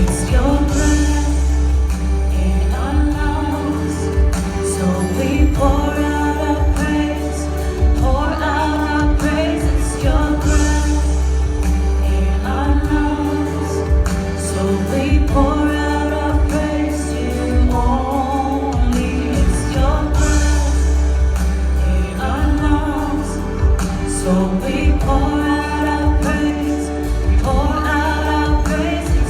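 Contemporary gospel worship song: voices singing a melody over continuous band accompaniment with a steady low bass.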